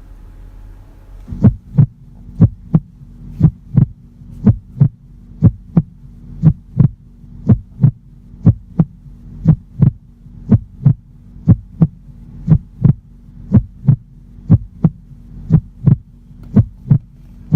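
Rap song intro built on a heartbeat sound effect: a double thump about once a second over a low, steady drone, both coming in about a second and a half in.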